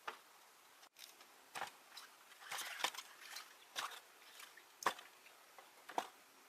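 A series of sharp, irregularly spaced clicks and knocks, about eight of them, with a quick cluster a little before the middle.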